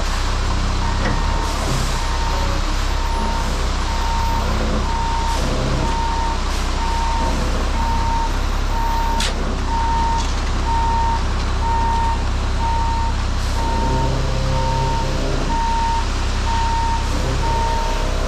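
Truck reversing alarm beeping steadily, a little over once a second, over a diesel engine running, with one sharp click about halfway through.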